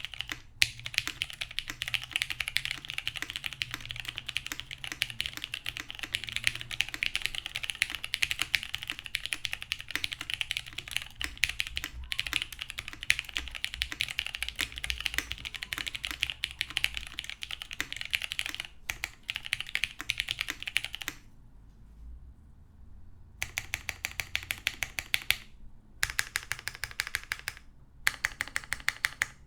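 Fast continuous typing on a custom tenkeyless mechanical keyboard with lubed vintage Cherry MX Brown tactile switches on a polycarbonate plate, topped with GMK keycaps. The rapid keystrokes pause for about two seconds roughly three-quarters of the way through, then resume.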